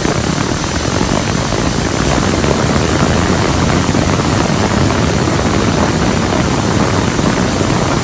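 Loud, steady rush of driven air with a low rumble, from a powered blower or air jet spinning a fidget spinner up to speed.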